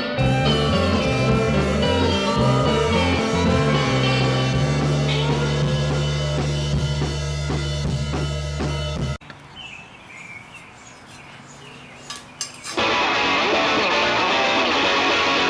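Rock music with a bending, slide-style electric guitar. It drops out abruptly after about nine seconds, leaving a quieter stretch of faint sounds with a few clicks, then loud music comes back in about three and a half seconds later.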